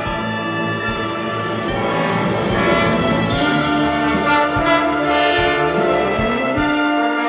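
Symphony orchestra playing a concerto passage with a solo tuba, brass to the fore. Long held notes, with a short upward slide near the end and a few short percussive strikes.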